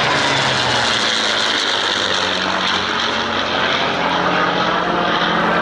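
An F-16 jet fighter and a P-51 Mustang flying past together in formation: the jet engine's rush mixed with the Mustang's V-12 piston engine and propeller drone, steady and loud.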